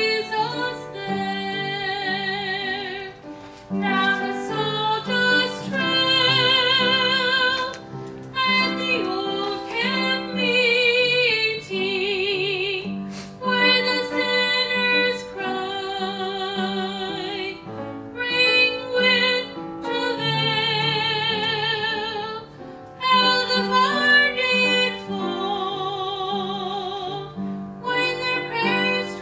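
A woman singing a gospel song with strong vibrato over instrumental accompaniment, in phrases a few seconds long with brief breaks between them.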